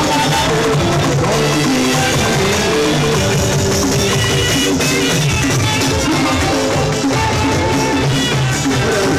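Live fuji band music played loud through a PA, with a steady beat on drums and percussion.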